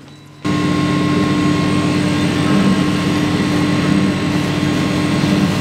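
Laser cutter running as it cuts a wooden sheet: a steady mechanical whirring hum that starts suddenly about half a second in.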